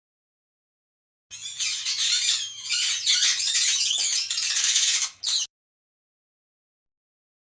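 Mouse squeaking: a dense run of rapid, high-pitched squeaks starting about a second in and lasting about four seconds, with a brief break near the end before one last short burst.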